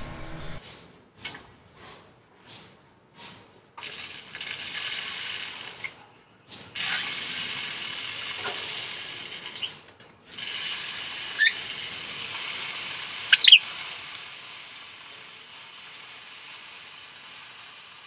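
Bird feed pouring from a cup down a paper chute into a cage, a dry steady hiss like running water: first a few short spurts, then three long runs with short pauses, fading near the end. Two brief bird chirps come a little after the middle.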